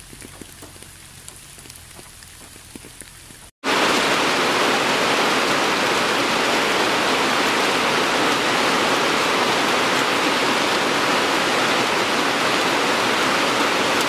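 Light rain with sparse raindrop ticks. After a brief break about three and a half seconds in, a much louder heavy downpour hisses steadily.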